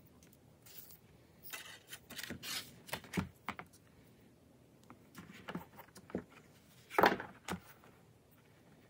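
Handling sounds from a leather notebook as a small brass charm is threaded onto its elastic cord and the cord is stretched and tied: scattered rustles and light clicks in two clusters, the loudest rustle about seven seconds in.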